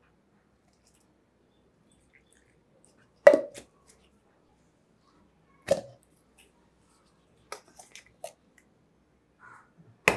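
Sparse metallic knocks from a stainless steel grinder jar and its lid: two sharp knocks with a brief ring about three and five and a half seconds in, a few light clicks after that, and a quick run of clinks at the very end as a spoon works in the jar.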